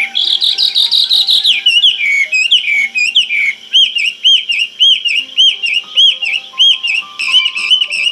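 Bird song: a warbling phrase, then a few slurred falling whistles, then from about halfway a run of repeated arched whistled notes at roughly two a second. Soft piano music plays faintly underneath.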